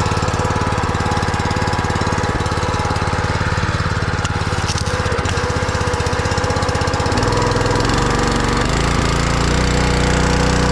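Small single-cylinder gasoline engine of a pressure washer running just after pull-starting on the choke. Its note changes about seven seconds in and settles into a steadier, different pitch.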